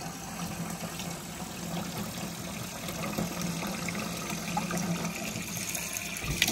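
Tap water running steadily into a stainless steel sink and splashing over eggs being rinsed. A single sharp click right at the end.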